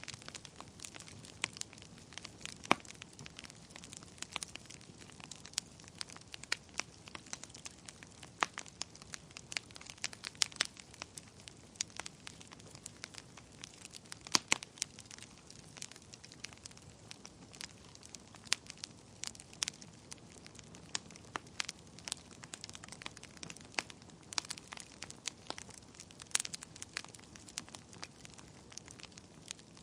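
Wood fire in a fireplace crackling, with frequent irregular sharp pops and snaps over a soft steady hiss.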